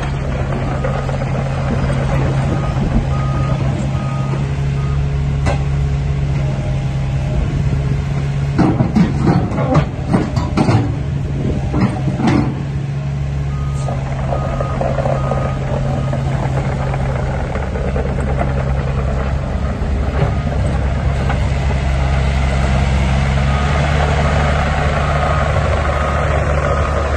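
Bobcat E85 excavator's diesel engine running steadily as the machine tracks around, its travel alarm beeping repeatedly in stretches. A burst of clanks and knocks comes roughly a third of the way in.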